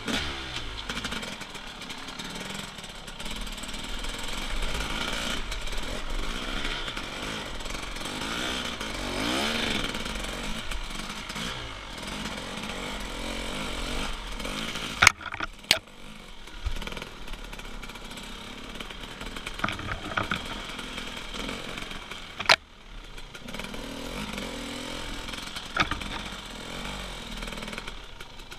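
Enduro motorcycle engine revving up and down as the bike is ridden over river boulders, with a few sharp knocks about halfway through and again later.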